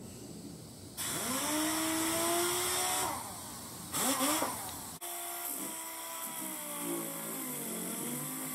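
Air-powered dual-action sander with 180-grit paper spinning up about a second in with a rising whine, stopping, giving a short burst, then running steadily against the painted ABS plastic wing with a wavering pitch. It is run on a gentle 60 PSI to take off paint and clear coat.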